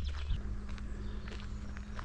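Footsteps of a walker, a scatter of short crunching ticks, with a short high trill fading out just after the start and a steady low hum underneath.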